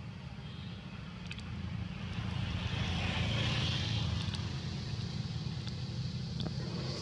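A steady low engine rumble, with a rushing hiss that swells and fades around the middle.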